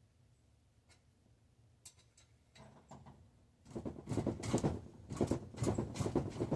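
Metal tools and bicycle parts being handled during a teardown. A few isolated clicks come first, then a loud run of rapid clattering and rattling in the second half.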